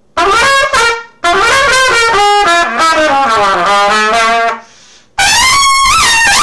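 Bach Stradivarius trumpet played solo: a short opening figure, then a longer run that descends into the low register, and after a brief breath a sustained high note with a bend in pitch near the end.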